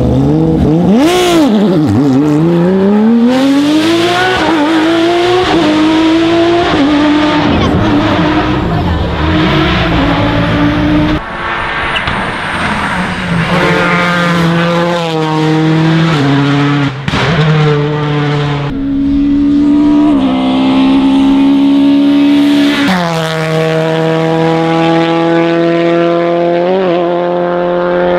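Rally car engines driven hard at full throttle: the engine note climbs, drops back at each upshift and climbs again, through several passes in a row.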